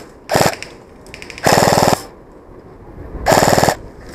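VFC HK416 airsoft electric gun firing three short full-auto bursts, its gearbox cycling rapidly. The middle burst is the longest.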